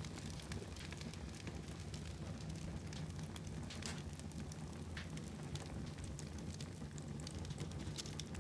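Fire in a fireplace crackling, with frequent small irregular pops over a steady low rumble of the flames.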